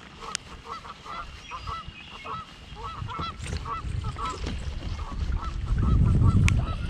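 Geese honking over and over, two or three short calls a second, with a low rumble that swells near the end.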